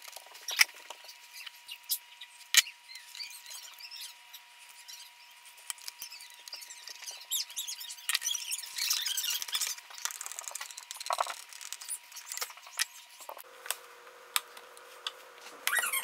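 Hand-tool work on a wall outlet's wiring: a couple of sharp clicks from an Irwin Vise-Grip wire stripper as wire ends are stripped, with scattered faint high squeaks and scraping.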